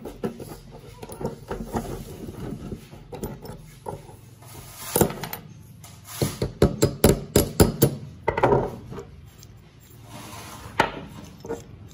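Sharp metal-on-metal hammer strikes on a steel punch held against a small rusty vise's screw, working the round swivel pad off the screw end. The strikes come singly, with a quick run of about eight of them in the middle.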